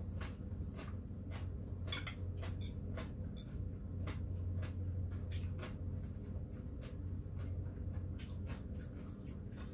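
Metal chopsticks clicking and scraping against plates and bowls, with chewing, over a steady low hum.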